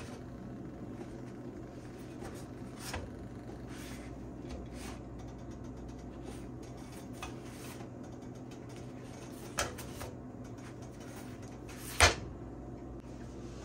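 Rolls being turned on a nonstick griddle pan: a few soft taps and knocks over a steady low hum, with one sharp knock near the end that is the loudest sound.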